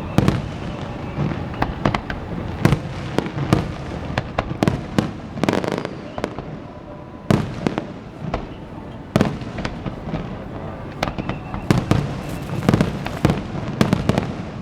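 Aerial fireworks display: shells bursting in a rapid, irregular series of sharp bangs, some in quick clusters, over a continuous low rumble of further bursts.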